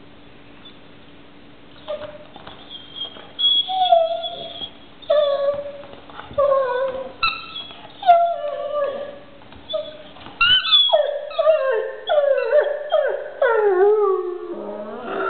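A black Labrador-type dog whining and howling in short calls that each slide down in pitch, with its rubber toy at its mouth. The calls start about two seconds in and come faster and closer together from about ten seconds in.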